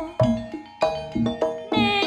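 Live Javanese gamelan music: metallophones strike a short run of single notes, about five, with a lull near the middle between phrases.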